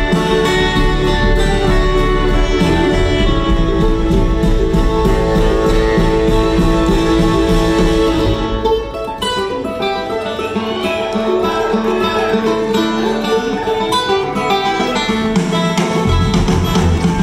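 A live string band of acoustic guitars, fiddle, upright bass and drums playing an instrumental jam in a bluegrass-rock style. About halfway through, the low end drops out and the music thins and gets a little quieter, then the low end comes back in near the end.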